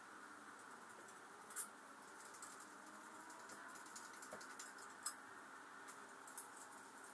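Faint clicks, ticks and light scraping of hand tools and metal parts being handled on a car engine, over a steady low hiss, with two sharper clicks about one and a half seconds and five seconds in.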